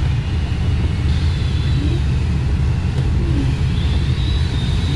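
Steady loud rumble of airflow rushing over a glider in flight.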